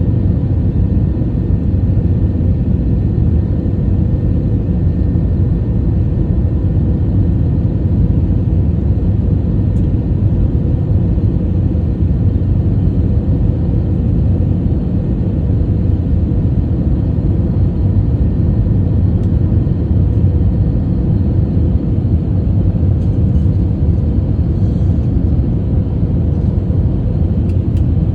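Steady low rumble of an aircraft's engines and airflow during landing, unchanging throughout.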